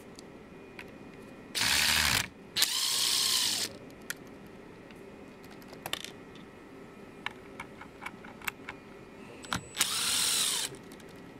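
DeWalt DCF610 12V cordless screwdriver run three times in short bursts, its motor and gearbox whirring up to speed and winding down each time, with light clicks between the runs.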